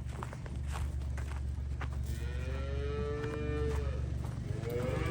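Cattle mooing: one long moo about two seconds in and another starting near the end, over a steady low hum, with a few light knocks early on.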